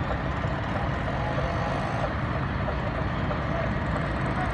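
Steady low rumble of idling heavy trucks, with faint voices in the background.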